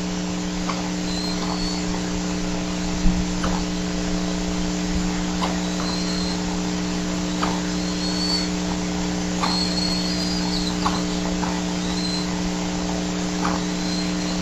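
Steady electrical hum and hiss from a nest camera's microphone. Faint short high chirps come every second or two, and there is one short knock about three seconds in.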